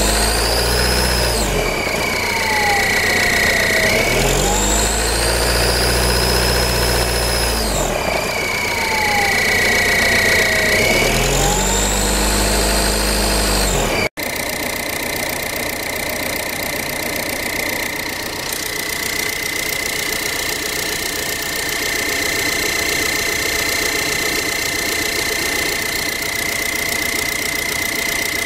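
Ford TDCi diesel engine revved several times, a high whistle rising and falling in pitch with the revs. After a sudden break about halfway through, it settles to a steady idle with the whistle held at one pitch. The engine runs with a shake.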